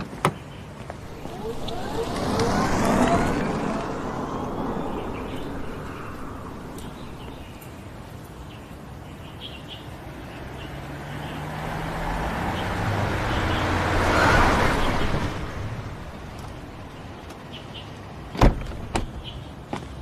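A car drives off, its engine and tyre noise swelling and fading over a few seconds. About halfway through, a second car, a black Mercedes-Benz SUV, approaches and pulls up with a low engine hum. Near the end there are sharp clicks of a car door opening.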